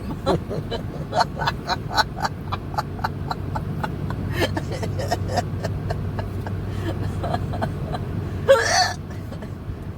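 A single voiced hiccup, a short high squeak, about eight and a half seconds in, over the steady low hum of a car on the move. Light irregular clicking runs through the first half.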